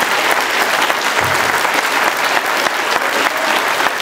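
Congregation applauding: dense, steady clapping from many hands.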